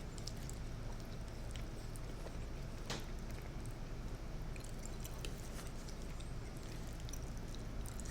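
Someone chewing food close to the microphone: faint, irregular soft clicks from the mouth over a steady low hum, the clearest click about three seconds in.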